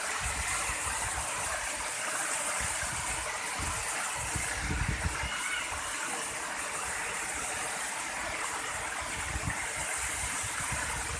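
Waterfall rushing in a steady hiss, with an uneven low rumble underneath.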